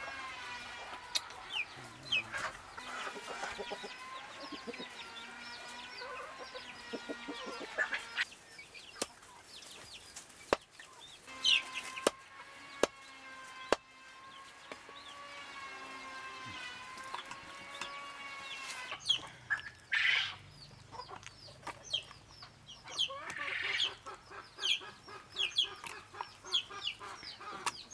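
Chickens clucking and calling, with a few sharp knocks of a knife chopping quail on a wooden stump. Two long wavering tones of several seconds each run through the first two-thirds; the short clucking bursts are busiest near the end.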